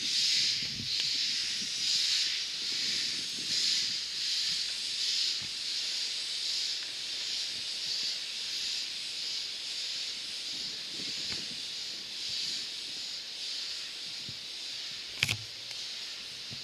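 Steam locomotive moving slowly with its cylinder drain cocks open, steam hissing out beside the wheels in pulses about every second and a half that even out into a steadier hiss. A single sharp clank about fifteen seconds in.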